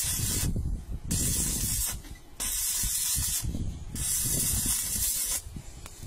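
Electric arc welding on steel rebar, a loud crackling hiss in bursts of about a second that stop and restart four times as joints of the cage are welded.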